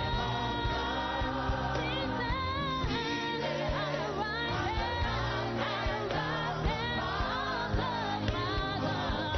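Worship song: a lead voice singing with backing voices over band accompaniment with a steady beat.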